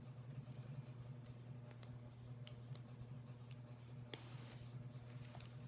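Lock picks clicking and ticking against the wafers of an old double-sided Fort Lock Co. All-Safe wafer lock during picking, with one sharper click a little past four seconds in, over a steady low hum.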